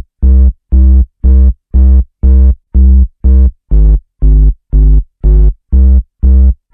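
Background synthesizer music: loud, evenly pulsed bass-heavy chords, about two a second.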